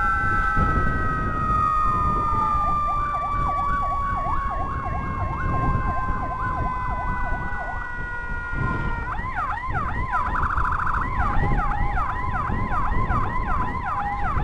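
Motorcycle escort's electronic siren sounding nonstop, at first as held tones. It then switches to a yelp sweeping up and down about twice a second, and later to a higher sweep with a brief fast warble about ten seconds in, over engine and road noise. It is being run continuously because the ambulance being escorted has no siren of its own.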